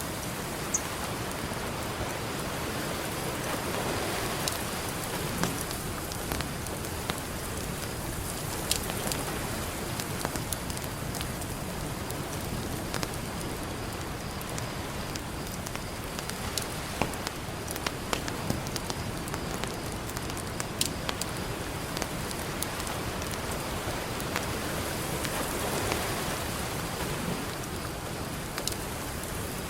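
Campfire crackling with scattered sharp pops over a steady wash of ocean surf, the surf swelling about four seconds in and again near the end.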